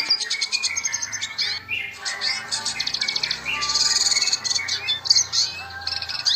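Red siskin singing a continuous, fast twittering song of rapid trills, chirps and sliding notes.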